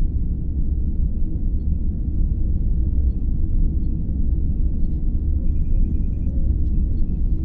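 Starship engine ambience: a steady deep hum with faint electronic beeps, a quick run of them about five and a half seconds in.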